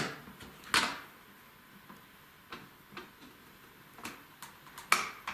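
Plastic parts of a Play-Doh toy dessert press clicking and tapping as it is handled and its top is flipped open. There are a few sharp clicks, the loudest about a second in and near the end, with softer taps between.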